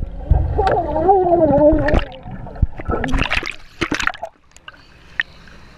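Action-camera microphone plunging into pool water: about two seconds of muffled underwater rumble with a wavering, held voice-like tone, then splashing and water dripping as it breaks back through the surface.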